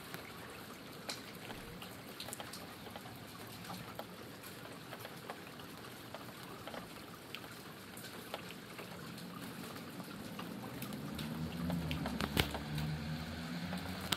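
Steady rain with many separate drops tapping and dripping close by. In the last few seconds a low rumbling hum with a wavering pitch builds up under the rain.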